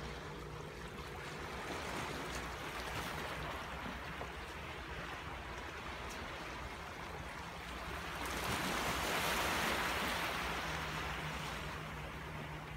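Rough sea waves surging against the shore, with one large surge swelling about eight seconds in and then fading.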